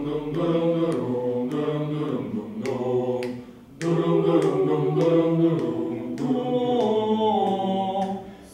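A youth choir singing sustained chords in several parts without words, holding each chord and moving in steps. It breaks off briefly about three and a half seconds in, then comes back in.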